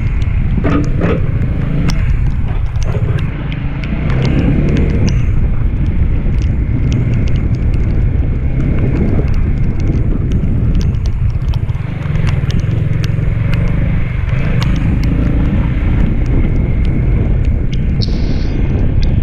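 Motorcycle engine running under way with heavy wind rumble on the microphone, the level dipping briefly twice, with scattered sharp ticks over it.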